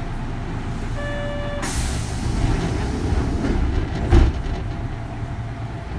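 Interior of a Kintetsu 3200 series train car: a steady low rumble, with a short electronic beep about a second in, followed at once by a burst of air hiss, and a heavy thump about four seconds in.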